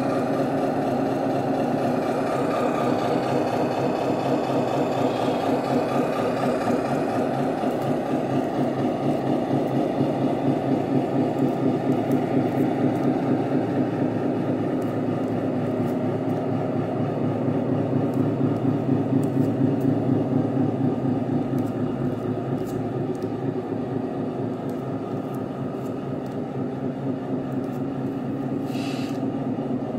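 Engine-sound units of 1/14-scale RC trucks playing a simulated diesel idle: a steady, evenly pulsing truck-engine rumble.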